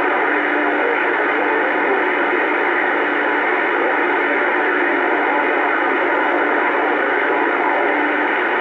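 Bearcat 980 CB radio on AM channel 28 (27.285 MHz) hissing steady static through its speaker, an even rush of band noise with faint tones buried in it.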